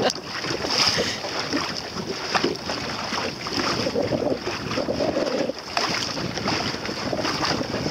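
Water rushing and sloshing along the hull of a small sailboat under way, with wind buffeting the microphone and a steady hiss.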